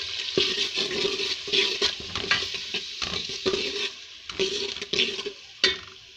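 Chopped tomatoes sizzling in hot ghee and spice masala, with a steel ladle stirring and scraping the pot in irregular strokes; the last sharp stroke comes near the end.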